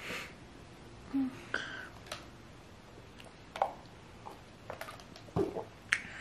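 A plastic cup of ice being handled and drunk from: scattered short clicks and knocks as the ice shifts against the cup.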